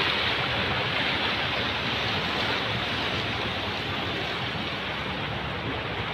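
Seawater rushing and churning past boats and jetty pilings, a steady rushing noise: the sea surging up and draining back in the earthquake-driven rise and fall of the water.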